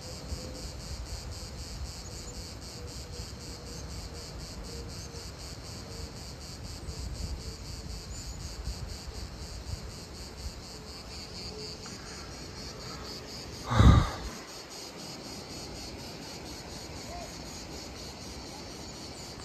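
Insects chirping in a steady chorus of rapid, even high-pitched pulses. A single brief thump about fourteen seconds in.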